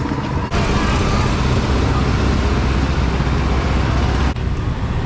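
City street traffic noise with a low rumble and some voices in the background; the sound jumps abruptly about half a second in and again near the end.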